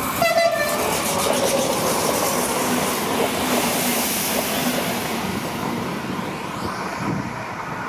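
Renfe regional passenger train running through at speed: a loud rush of wheels on rail with some clickety-clack, with a tone that drops in pitch as it goes by.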